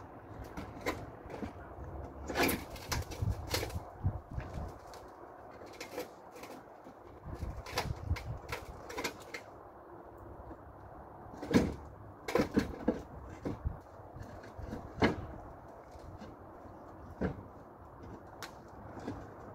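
Clay roof tiles knocking and clacking against each other as they are handled and laid back in place: irregular sharp knocks in small clusters, the loudest about halfway through.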